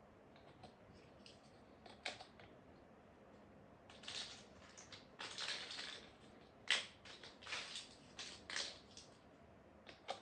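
Plastic Lego bricks clicking and rattling as they are handled and pressed together: scattered sharp clicks with short rustling clatters, the loudest a sharp click about two-thirds of the way through.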